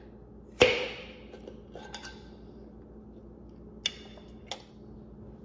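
Glass sauce jar's metal twist-off lid breaking its seal with one sharp pop about half a second in, followed by a few faint clicks and glass taps as the jar is handled and tipped.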